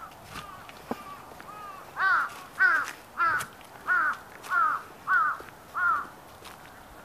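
A crow cawing: a run of seven evenly spaced caws, about two-thirds of a second apart, led in by a few softer calls.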